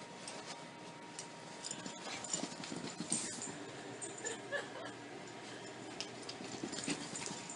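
Corgi puppy making a few faint, short vocal sounds, with light scattered taps and scuffles.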